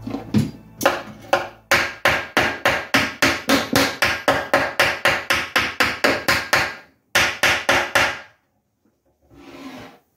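Hammer striking metal rivets through a leather strap into a plywood shield board, a fast, even run of sharp blows about four a second. The blows pause briefly, then a few more follow. A softer scrape or shuffle comes near the end.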